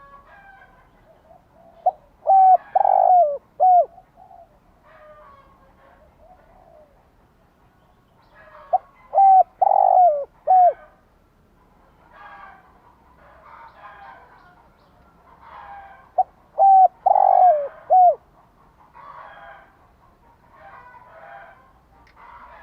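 Spotted dove cooing: three full phrases of several deep coos, each phrase about two seconds long and the notes dropping in pitch at their ends, repeated roughly every seven seconds. Fainter chirping calls of other birds fill the gaps between phrases.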